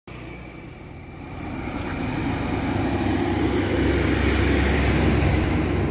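A vehicle passing on the road: engine and tyre noise that grows louder over the first three seconds, then holds steady.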